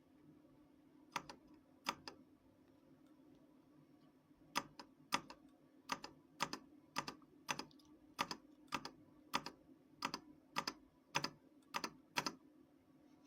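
Keys on an RK Royal Kludge RK61 mechanical keyboard pressed one at a time. There are two separate presses early on, then a steady run of presses about every half second from about four seconds in. A faint steady low hum sits underneath.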